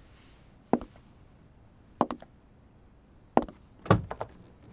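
Footsteps sound effect: slow, hard-soled steps on a hard floor, about one a second, with a quick cluster of knocks and clicks near the end.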